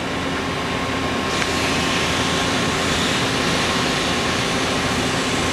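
Kuraki KV-2000 CNC vertical machining center running: a steady mechanical whir with a thin steady tone, a higher hiss joining about a second in, and the sound slowly growing louder.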